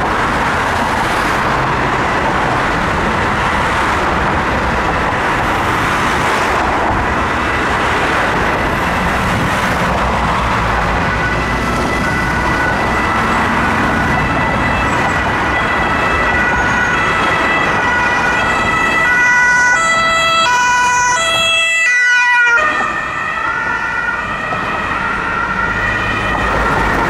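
German two-tone emergency siren (Martinshorn) on a fire brigade VW Amarok bomb-disposal vehicle, stepping back and forth between two pitches over dense city traffic noise. It stands out more from about the middle on, is loudest about three quarters through, and briefly drops out just after.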